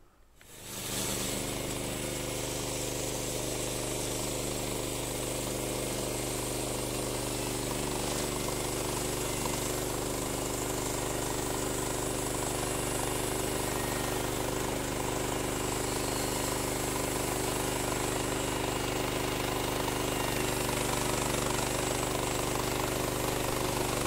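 Woodland Mills HM126 portable band sawmill running steadily under load, its gas engine and band blade ripping a board off a squared log cant in one long pass. It comes in about half a second in.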